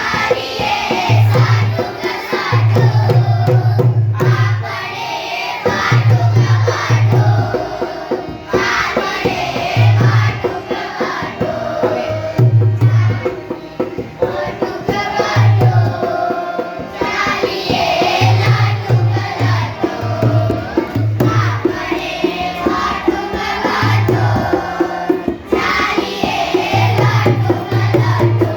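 A Gujarati children's song: voices singing a melody over a hand-drum accompaniment, with the low drum beats coming in short groups.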